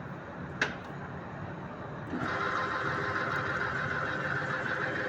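Pipe threading machine deburring the freshly cut end of a galvanized iron pipe: after a sharp click, a steady scraping noise starts about two seconds in and keeps going without breaks.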